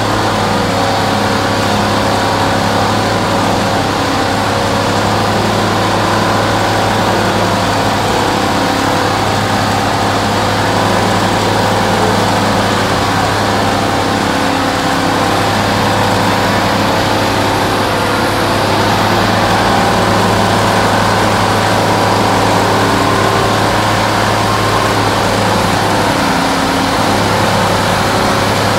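Car engine held at steady high revs through a long burnout, its rear tires spinning on the pad.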